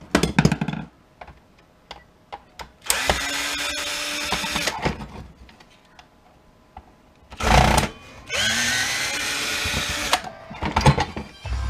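A handheld power drill or driver runs in two short spells of about two seconds each, its pitch rising slightly. Between them come clicks and clatter of metal and plastic parts being handled, and one heavy knock.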